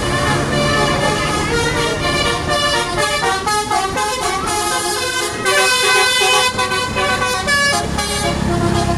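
Tour bus's telolet musical horn playing a tune of many quick tones that step up and down in pitch, over a low engine rumble that is strongest at the start and again near the end.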